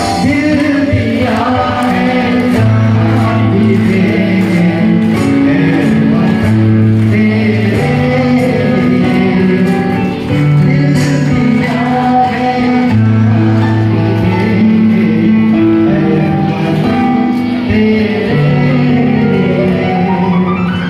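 A song with singing over instrumental backing, played loud, with long held low notes in the accompaniment.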